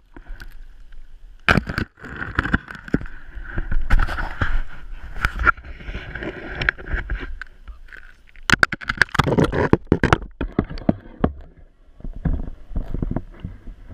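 Water splashing and gurgling around a waterproof camera dipped in and out of an ice-fishing hole, with many irregular knocks on the camera housing.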